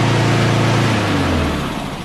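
Honda walk-behind lawnmower's small single-cylinder engine running steadily, then stopping about a second in, its pitch falling as it spins down.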